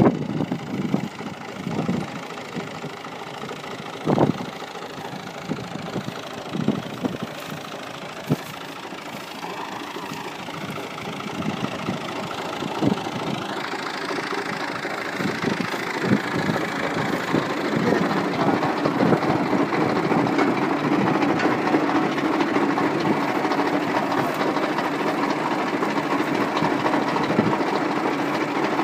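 New Holland Al Ghazi tractor's diesel engine idling, with scattered short knocks in the first half. The engine sound grows steadily louder from a little before halfway and then holds.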